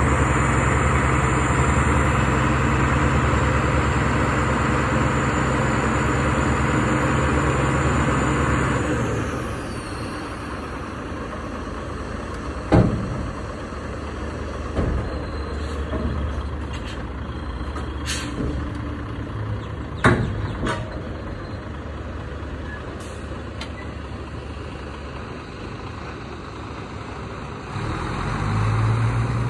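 Hook-lift truck's diesel engine held at high revs to drive the hydraulic hook arm as it sets a skip bin down, dropping back to idle after about nine seconds. Two sharp metal clanks follow, with a few lighter knocks between them, as the bin settles and the hook lets go. The engine picks up again near the end as the truck pulls away.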